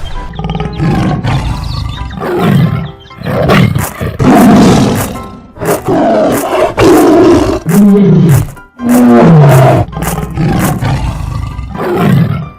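A large animal roaring and growling in a series of loud calls about a second each, a few of them falling in pitch.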